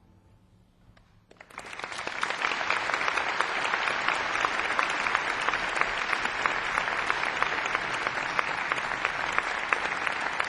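Audience applauding, starting suddenly about a second in after a short hush, with many hands clapping steadily.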